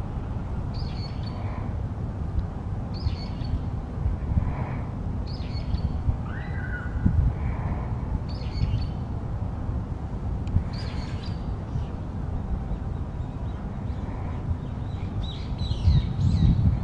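Crows cawing now and then, with a small bird giving a short high call about every two seconds and a busier run of high calls near the end, over a steady low rumble.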